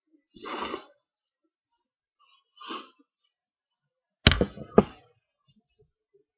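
A person sneezing after breathing in pepper: two breathy gasps build up, then about four seconds in comes a loud, sharp sneeze in two quick bursts about half a second apart.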